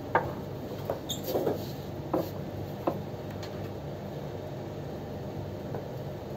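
Room tone with a steady hum from running electric fans, and a handful of short, light knocks and clicks in the first three seconds, the first the loudest.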